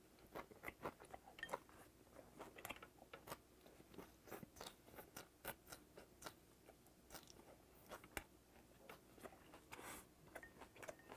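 A person chewing a mouthful of spicy raw gizzard shad salad with crunchy raw vegetables, close to a clip-on microphone. It comes as a run of irregular small crunches and wet mouth clicks.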